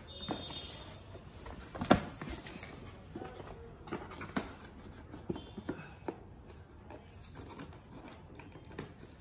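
Hands handling cardboard packaging and a plastic-wrapped laptop: light rustling with scattered soft taps and clicks, and one sharper knock about two seconds in.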